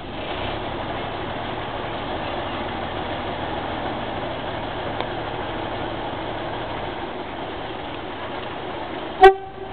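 Mk48 narrow-gauge diesel locomotive's engine running steadily at low revs as it slowly backs its train along the track. Near the end comes one very short, loud horn toot.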